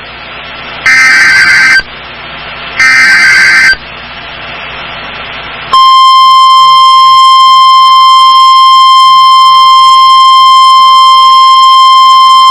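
Emergency Alert System tones on a NOAA Weather Radio broadcast: two short bursts of SAME header data about a second apart, the end of the digital alert header. About six seconds in, the steady 1050 Hz weather radio warning alarm tone starts and holds, signalling a severe thunderstorm warning.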